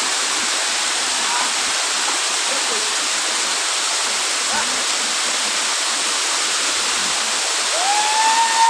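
Waterfall rushing with a steady, loud, even roar of falling water. Near the end a drawn-out high call rises and holds over it.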